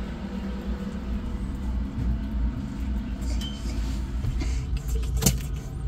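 Steady low background rumble, with a few faint clicks and one sharp click about five seconds in.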